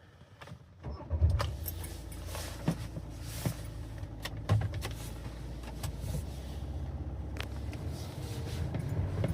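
VW T6.1 Multivan engine starting about a second in, then idling steadily, with a few light clicks.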